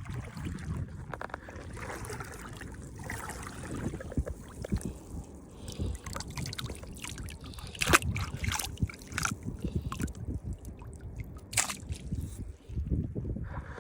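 Water sloshing and splashing, with several sharp splashes, the loudest about eight seconds in, over a steady low rumble of wind on the microphone.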